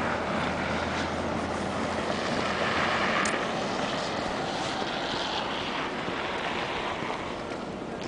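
Steady outdoor rush of street traffic and wind on the microphone, with a low engine hum that fades out a few seconds in.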